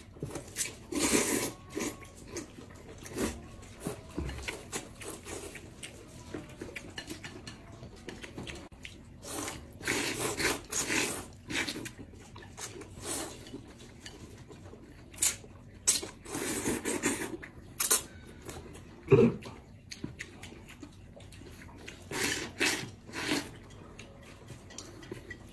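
People slurping noodles with chopsticks: several drawn-out sucking slurps about a second long each, with light clicks of chopsticks and bowls in between.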